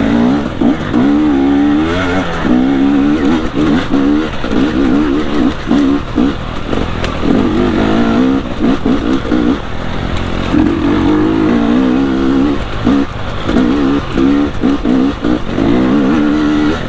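Stock 2022 KTM 250 XC TPI single-cylinder two-stroke dirt bike engine under way, its revs rising and falling constantly with the throttle, broken by frequent brief drops as the throttle is rolled off and back on.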